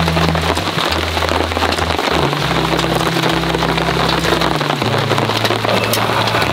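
Heavy rain falling steadily, a dense hiss of many small drops pattering on the tarp overhead, with soft bass notes of background music beneath.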